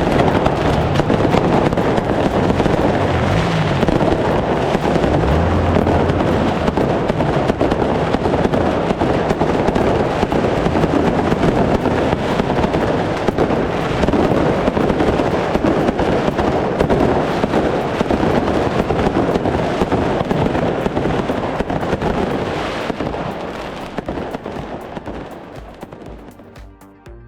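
Fireworks going off in a dense, continuous crackle of bangs and pops, with music underneath; the sound fades out over the last few seconds.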